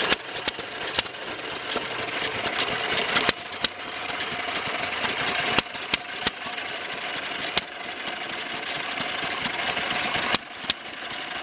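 An engine running, with sharp pops at irregular intervals, about a dozen of them.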